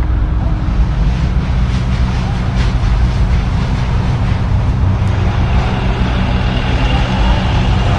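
Loud, steady low rumble with a hiss-like haze above it and a faint high steady tone in the second half.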